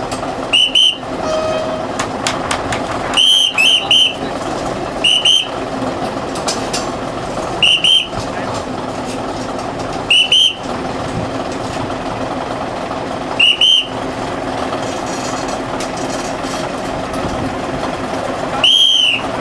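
Short, shrill whistle blasts, some single and some in quick pairs or threes, spaced a few seconds apart. Under them runs the steady hum of a heavy machine's engine. The last blast, near the end, is the longest.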